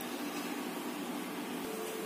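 Steady background hiss of room tone, with no distinct events. A faint steady hum joins about one and a half seconds in.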